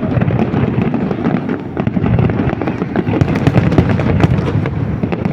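Aerial fireworks bursting in a dense, rapid barrage: many cracks and booms overlapping into a continuous rumble.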